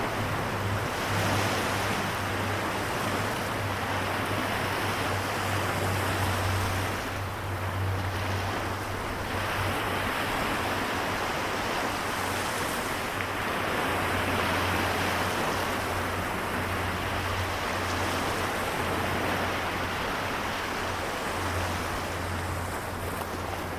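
Seto Inland Sea waves making a steady wash that gently swells and eases every few seconds, with a low steady hum underneath.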